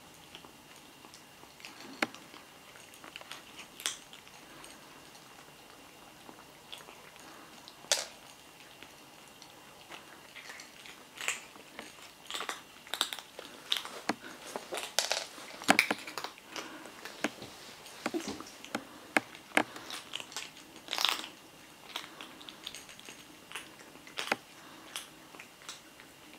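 Blue British Shorthair kittens crunching and chewing dry kibble: a few sharp crunches at first, coming thick and fast from about halfway in.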